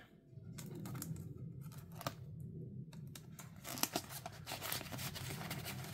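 Paper envelopes and cash being handled: rustling and crinkling with scattered light ticks and taps, busier in the second half.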